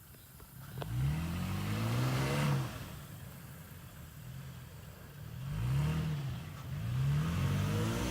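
2018 Toyota Tacoma SR5 4x4's engine revving up and easing off three times: a rise in pitch of about a second and a half, then two shorter swells near the end.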